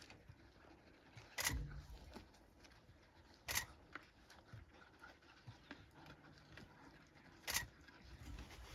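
Three short, sharp clicks, a couple of seconds apart, over a quiet background.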